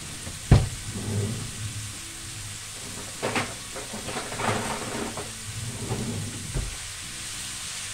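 Sliced leeks frying in oil in a pan, a steady sizzle. A sharp knock about half a second in, another near the end, and a few lighter clatters in between.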